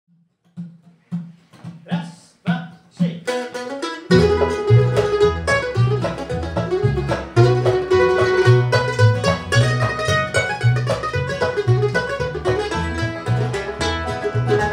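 Bluegrass band playing an instrumental intro on mandolin, acoustic guitar, five-string banjo and upright bass. A lead-in of single plucked notes, about two a second, gives way to the full band with a walking bass about four seconds in.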